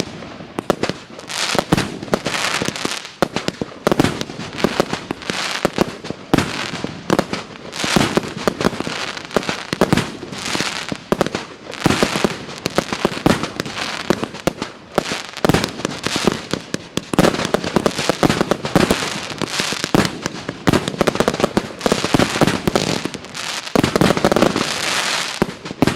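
'Provence' consumer fireworks battery (cake) firing shot after shot: launches and aerial bursts in a rapid, continuous string, several a second, with a brief lull a couple of seconds before the end.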